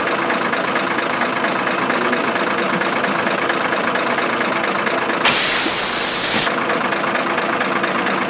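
An engine idling steadily, with a loud hiss lasting about a second a little past the middle.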